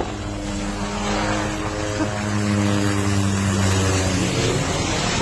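A light helicopter flying low overhead: the steady, even-pitched drone of its rotor and engine, fading away about four seconds in as it passes.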